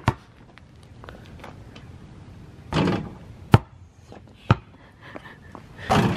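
A few sharp knocks, the loudest about three and a half seconds in and another about a second later, with short bursts of rustling noise between them.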